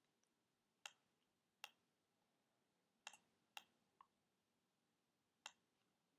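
Computer mouse button clicking six times at irregular intervals, short sharp clicks against near silence.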